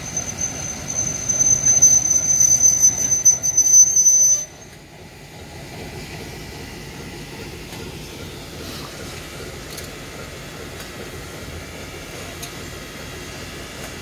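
Red diesel shunting locomotive rolling by with a steady high-pitched wheel squeal over its running noise, cutting off suddenly about four and a half seconds in. A steady, quieter noise follows.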